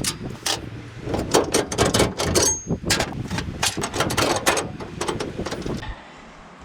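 Steel rack brackets and tools being handled: a rapid, irregular run of clanks and knocks that stops about six seconds in.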